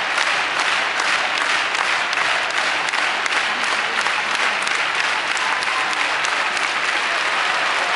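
Large arena crowd clapping steadily, a dense patter of many hands with some crowd noise mixed in.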